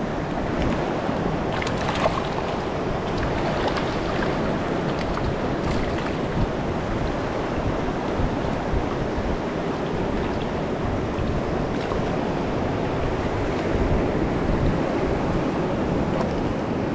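Steady rush of sea surf washing over a rocky shore at a strong high tide.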